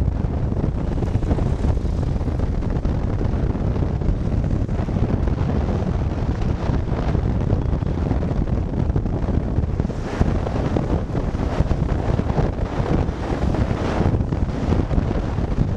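Wind buffeting the microphone of a rider on a moving motorcycle: a loud, steady rush that drowns out any other sound.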